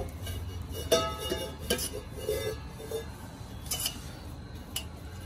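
Stainless-steel vessel handled while oil is rubbed around its inside by hand: a few light clinks and knocks of the metal, one about a second in ringing briefly, over a low steady hum.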